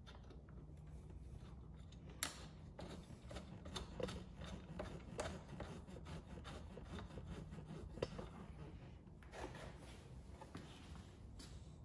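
Faint rubbing and scattered small clicks as a bolt is threaded in by hand and a motorcycle pannier rack is held against its mount, over a steady low hum.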